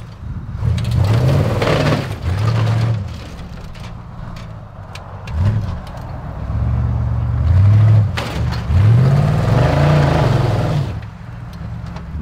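Off-road rock crawler's engine revving in repeated surges as it climbs over boulders, the pitch rising and falling with each push of the throttle, with a few sharp knocks among the engine noise.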